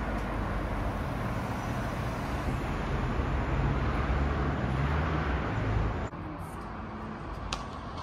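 Outdoor city traffic noise: a steady rumble of passing vehicles that swells in the middle. It drops suddenly about six seconds in to quieter street background, with one brief click near the end.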